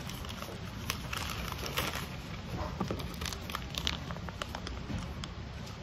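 A plastic mailing bag and a paper envelope rustling and crinkling in irregular bursts as they are handled and packed, over a steady low background hum.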